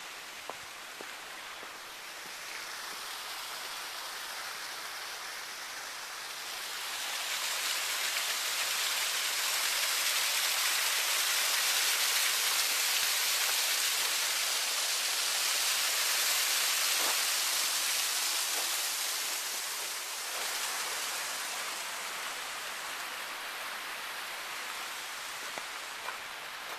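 Water splashing steadily down a backyard waterfall into its pool, growing louder for about half the stretch before easing back.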